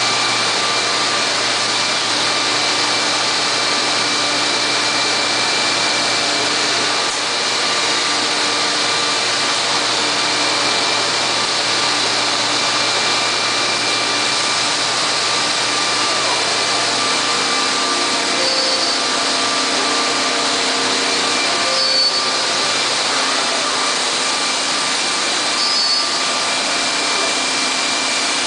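Weeke BP 155 CNC machining center running: a loud, steady whir with several steady whining tones. A low hum drops out about two-thirds of the way through, and a few brief high tones sound in the second half.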